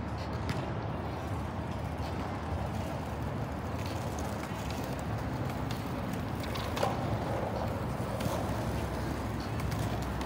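Outdoor city ambience: a steady low rumble with a few faint light clicks and faint distant voices.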